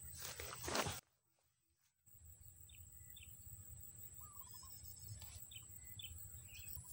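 Outdoor ambience: a steady low wind rumble and a steady high thin whine, with a few short bird chirps. A brief rustling noise at the start is followed by about a second of dead silence.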